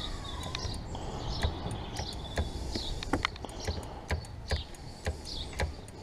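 Scattered light clicks and knocks from hands working a motorcycle's front brake caliper, over a bird chirping in short repeated phrases about once a second.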